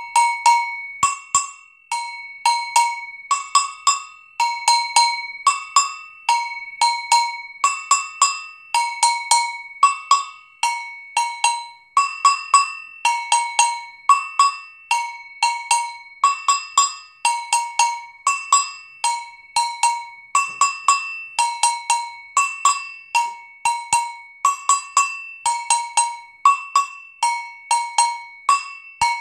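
Two-bell agogo struck with a wooden stick, playing the basic samba de enredo line: a steady repeating pattern of ringing strikes alternating between the low and the high bell.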